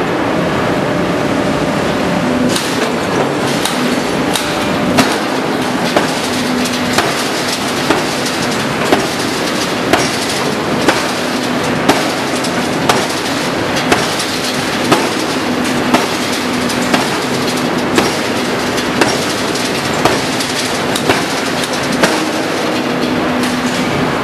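Hydraulic open-die forging hammer striking a red-hot steel axle forging. From about five seconds in there is a sharp blow about once a second, over a loud, steady machinery hum.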